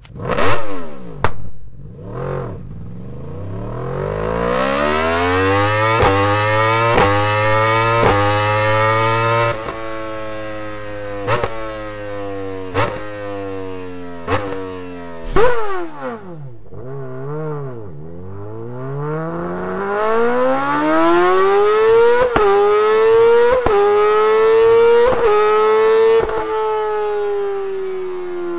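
Superbike engine through an Akrapovič exhaust. It opens with a few short throttle blips, then revs in long sweeps that rise and fall in pitch, with sharp cracks every second or so. After a brief dip near the middle it climbs again in small steps.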